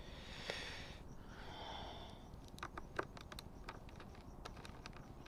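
Faint handling sounds. Two soft breaths in the first two seconds, then from about halfway a run of small clicks and taps as fingers work tape and plastic on the motorcycle helmet's shell near the visor pivot.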